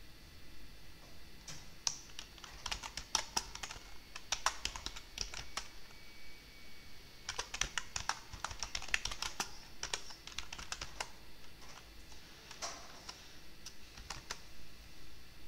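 Computer keyboard typing: two runs of rapid keystrokes, the first about two seconds in and the second, denser one about seven seconds in, followed by a few single key presses near the end.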